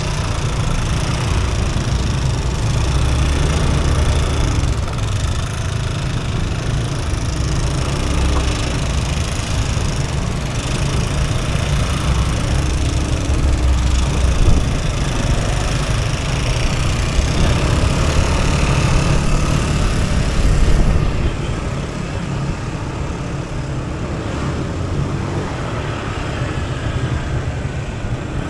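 Motor scooter engine running under way in traffic, with road and wind noise on the microphone. The sound drops a little in level about three-quarters of the way through.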